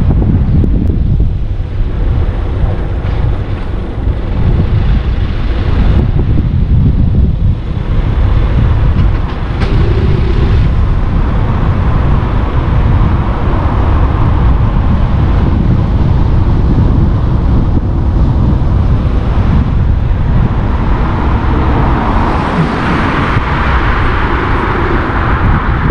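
Car driving through town streets: a steady, loud low rumble of tyres on the road, engine and wind buffeting the microphone, with the hiss growing louder near the end.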